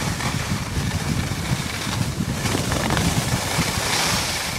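Wind buffeting the iPod Touch's microphone during a fast ski descent, a fluttering rumble, with the hiss of skis sliding over hard-packed snow; the hiss grows louder near the end as the skis turn into softer snow.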